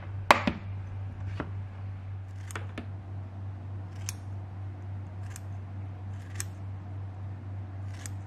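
Kitchen scissors snipping through cabbage kimchi, a series of sharp snips roughly once a second, over a steady low hum. Just before them, a plastic lunch box lid clicks shut.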